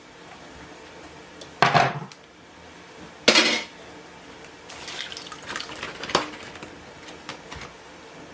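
Kitchen clatter of dishes and utensils: two short, loud knocks about a second and a half apart, then a stretch of lighter clinks and rattles with one sharp click.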